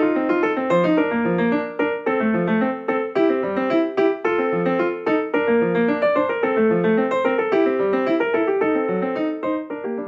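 Piano music: a continuous run of short notes with clear attacks at an even level.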